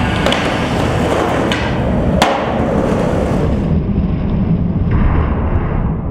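Skateboard on a concrete bank: a few sharp clacks of the board hitting concrete, the loudest about two seconds in, over a steady low rumble.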